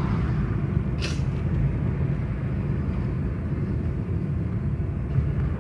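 Steady road and engine rumble inside the cabin of a moving car, with a single sharp click about a second in.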